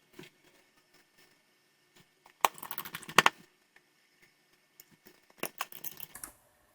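Small, sharp clicks and taps from handling a smartphone's parts and tools during reassembly, in two short bursts, the second about three seconds after the first.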